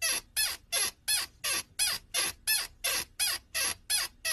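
A steady series of short, high squeaks, about three a second and evenly spaced, each sliding down in pitch.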